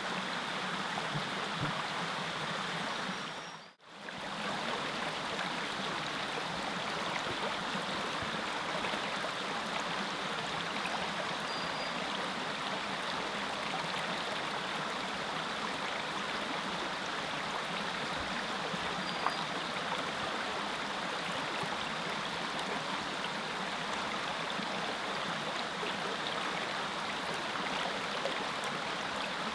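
Small mountain creek running over rocks, a steady rushing and gurgling. It cuts out for a moment about four seconds in.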